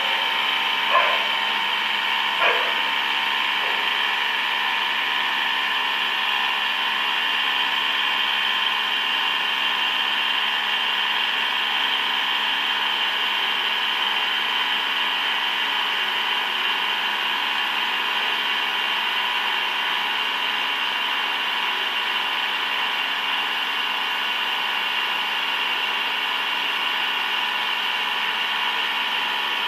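A large machine tool runs steadily, making a constant whine of many held tones. There are two short knocks in the first three seconds.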